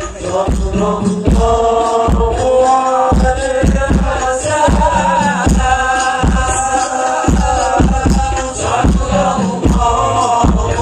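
Sholawat, an Islamic devotional song praising the Prophet, sung in chorus by a group of men over a steady hand-drum beat of about two to three strokes a second.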